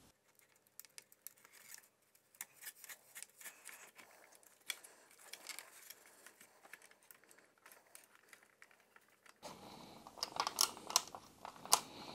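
Faint clicks and rustling as wires and plastic parts of a BMW E30 instrument cluster are handled. From about nine seconds in come louder, closer-spaced plastic clicks and knocks as the clear plastic gauge-face assembly is fitted and pressed onto the cluster.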